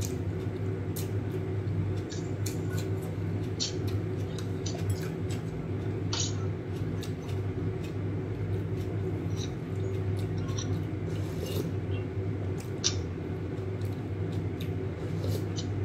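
Someone eating noodle soup: slurping noodles and broth, with many short wet mouth clicks and a metal spoon and chopsticks against a ceramic bowl. A steady low hum sits underneath throughout.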